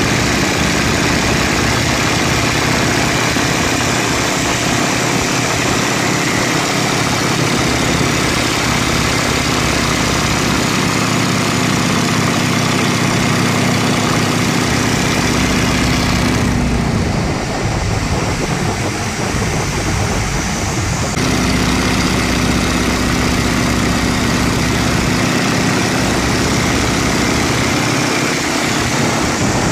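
Boeing Stearman biplane's radial engine and propeller running steadily in flight, heard from the open cockpit with heavy wind rush. A little past halfway the engine note drops and the sound thins for about five seconds, then comes back.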